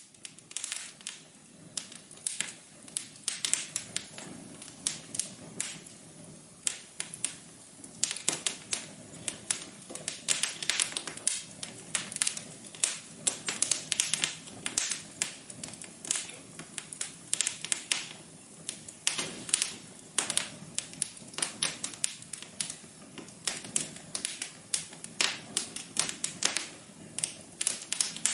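Wood fire crackling in a fireplace: irregular sharp pops and snaps, several a second, over a steady low rush from the flames.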